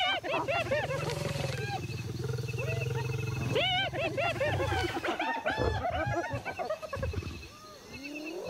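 Spotted hyenas giggling and yelping in a crowd of quick rising-and-falling calls, massed around a kill held by lions, over a low steady lion growl. The calls come thickest about a second in and again around three and a half seconds in.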